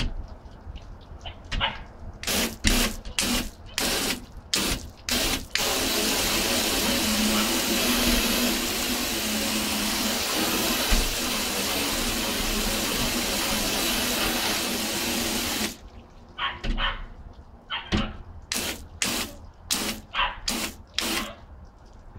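Garden hose spray wand shooting water against a glass door: quick squirts about two a second, then a steady spray for about ten seconds that cuts off sharply, then more short squirts.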